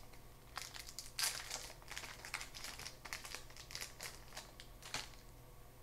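A 2006 Topps Opening Day baseball card pack's wrapper being torn open and crinkled by hand: a run of crackly rustles that dies away about five seconds in.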